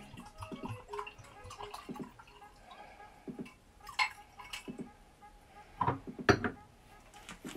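Red wine poured into wine glasses, with a few sharp clinks of glassware, the loudest about six seconds in.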